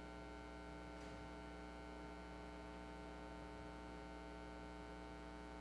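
Steady electrical mains hum in the sound system, a constant low buzz made of several fixed tones.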